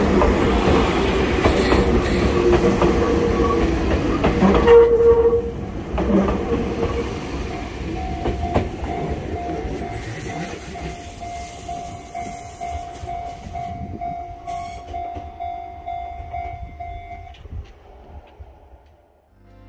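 A train passing close by, loud rail and wheel noise at first, then fading away over about a dozen seconds, with a steady whine lingering as it recedes.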